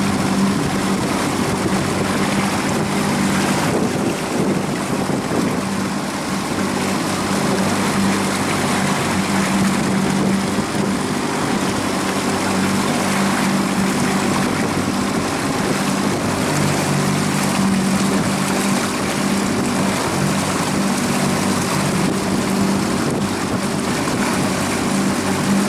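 Small motorboat's engine running at a steady speed, with a constant rush of water and wind noise over it.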